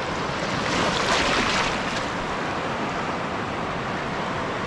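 Shallow surf washing in over sand around the feet, a steady rush of water with one louder surge about a second in.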